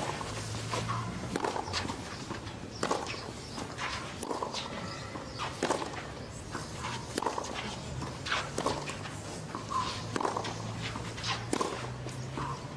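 Tennis rally on a clay court: sharp racket-on-ball strikes about every one and a half seconds, with fainter ball bounces and the players' footsteps on the clay in between.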